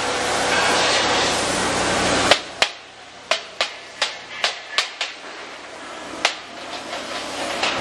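Metal strikes on a steel gas-cylinder body clamped in a welding fixture: about nine sharp, ringing knocks over some four seconds, the first the loudest. Before them a steady hiss runs and cuts off at the first strike.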